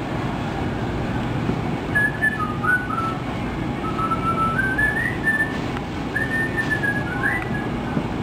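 A person whistling a short tune of held notes that step up and down in pitch. It starts about two seconds in and stops near the end, over steady low background noise.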